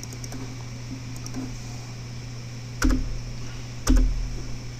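A few keystrokes on a computer keyboard: light clicks just after the start, then two heavier key presses about a second apart near the end, over a steady low hum.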